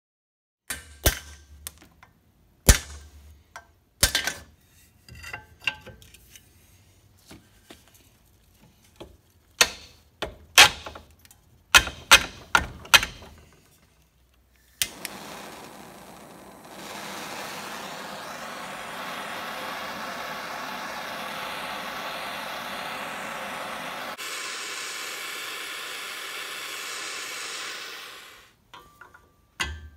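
Irregular sharp metal strokes and knocks from hand work on a steel shovel socket held in a vise, then a gas torch hissing steadily for about twelve seconds, its sound changing about two-thirds of the way through before it shuts off.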